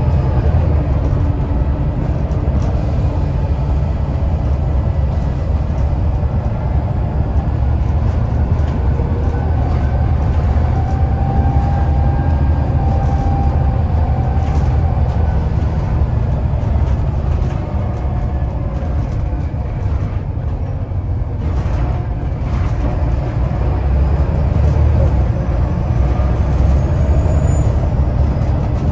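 Volvo B7TL bus's seven-litre six-cylinder turbo diesel engine running hard under load, a steady low running sound, with a faint turbo whistle coming and going above it, clearest around the middle and rising briefly near the end.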